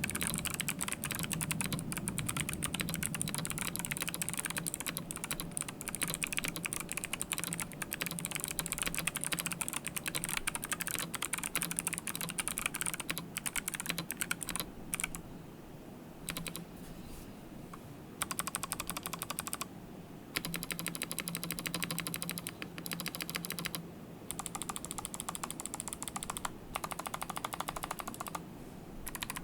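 Typing on a TM680 (Gamakay LK67) mechanical keyboard with stock Kailh Box White clicky switches, tape-modded and foam-filled: fast runs of crisp key clicks with a few short pauses.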